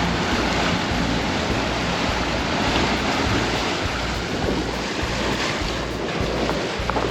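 Steady wind buffeting the microphone over the sound of open water washing around a small boat.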